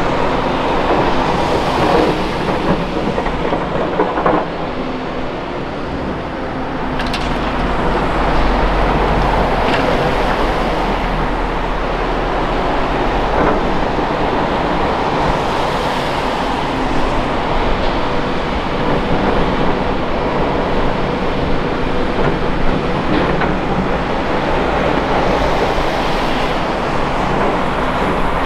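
Diesel engines of a Volvo ECR235E excavator and a Volvo A30G articulated dump truck running steadily while the excavator digs and loads dirt and rocks. A few sharp knocks and clanks of bucket and rock come through now and then.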